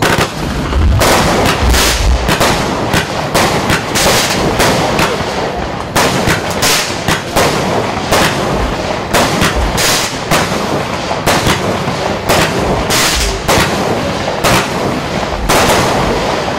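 Lesli 'Road Rage' 19-shot fireworks cake firing: a loud, rapid series of shots, one to two a second, each tube thumping out and bursting, with crackling between the shots.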